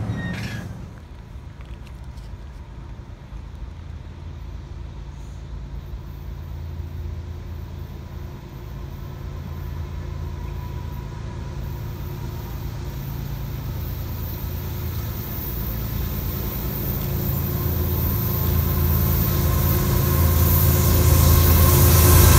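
Two CSX diesel locomotives hauling a freight train approach, their engines' low rumble growing steadily louder until they are close near the end. In the first second, the tail end of a passing NJ Transit multilevel commuter train is heard before it fades.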